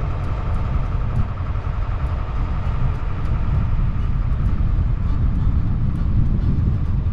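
A car driving along a gravel road: steady rumble of engine and tyres on the gravel, with no breaks.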